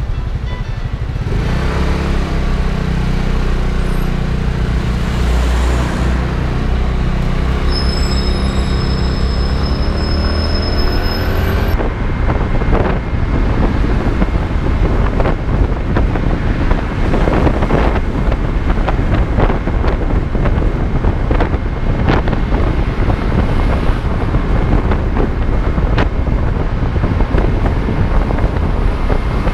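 Motorcycle engine running, its pitch rising as the bike accelerates up to about twelve seconds in. After that, gusty wind buffeting on the microphone at road speed takes over, with the engine underneath.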